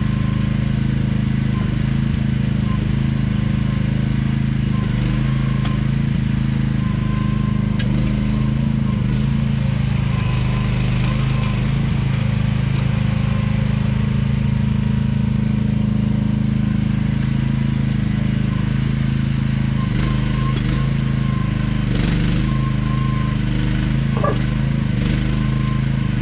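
AGT QH12R mini excavator's small engine running steadily under work. A faint whine comes and goes above the engine note, with a few light knocks and scrapes.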